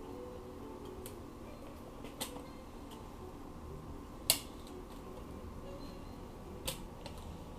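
A few sharp metal clicks and clinks, four in all with the loudest about four seconds in, over a steady low hum: automatic transmission clutch parts being handled and fitted together.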